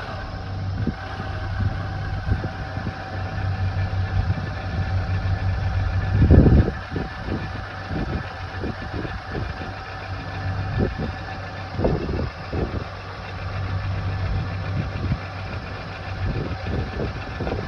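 Renault Dokker engine idling steadily after its overhaul, with a brief louder surge about six seconds in.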